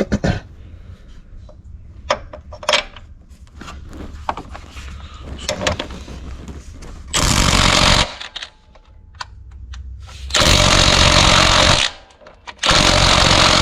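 Impact wrench hammering on a 17 mm engine-mount nut in three bursts, each one to a second and a half long, with a few light knocks and clinks of tools before them. The nut does not break loose: the gun is not strong enough for it.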